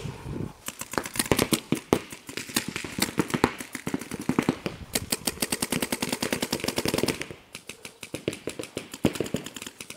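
Paintball markers firing rapid strings of shots, many a second, with a brief lull about seven seconds in.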